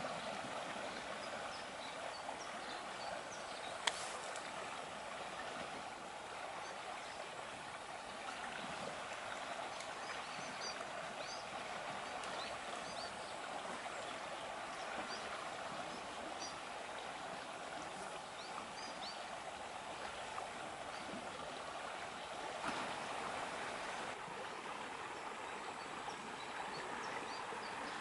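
Steady rush of flowing river water, with faint high chirps scattered through it and a single sharp click about four seconds in.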